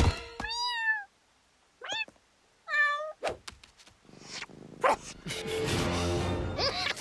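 A kitten meows three times in short, high mews, the first one wavering. A few sharp knocks follow, and music comes in over the last couple of seconds.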